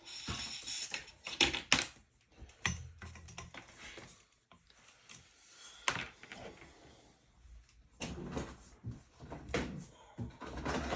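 Hands handling electrical plugs and cords: irregular plastic clicks and knocks with bursts of rustling, in no steady rhythm.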